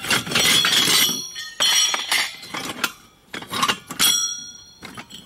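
Aluminium heatsinks and scrap metal pieces clanking and clinking against each other as they are handled and shifted in a pile, several knocks with a bright ringing after the loudest ones, at the start, after about a second and a half and about four seconds in.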